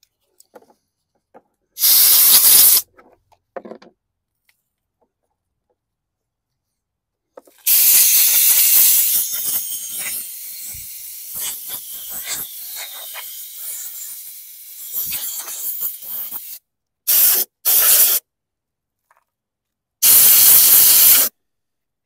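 Compressed-air blow gun blasting dirt out of a lawn mower's air filter and filter housing, in bursts of loud hiss: a short one about 2 seconds in, a long one lasting about eight seconds that slowly eases off, two quick blasts, and one more near the end.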